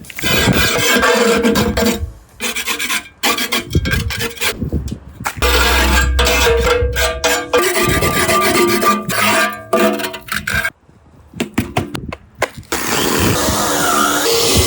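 Rubbing and scraping, like filing or sawing, in short choppy stretches broken by sudden cuts, with music underneath.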